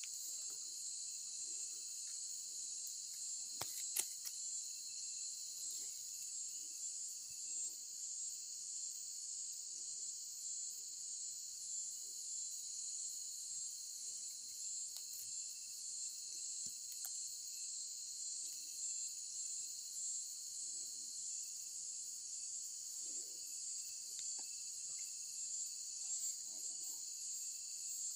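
Steady chorus of night insects, a high-pitched trilling that does not let up. A single sharp click comes about four seconds in.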